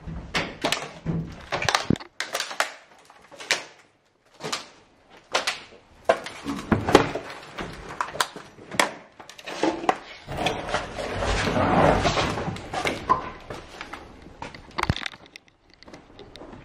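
Irregular knocks, thuds, scrapes and crunching of debris being stepped on and handled in a small room, with a longer stretch of scraping and rustling about ten to thirteen seconds in.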